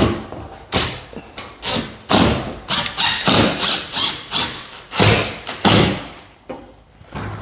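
A run of sharp knocks, about two to three a second, from work on the opener's fixings, thinning out near the end.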